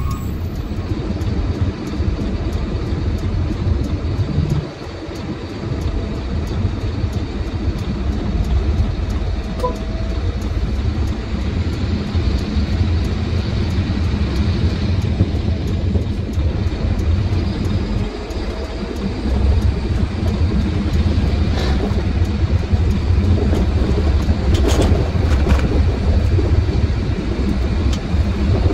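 Truck engine and road noise heard from inside the cab while driving: a steady low rumble that dips briefly twice, about five and eighteen seconds in.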